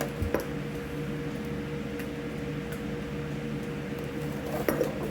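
A steady mechanical hum in the room with several even tones, and a light click about a third of a second in and again near the end.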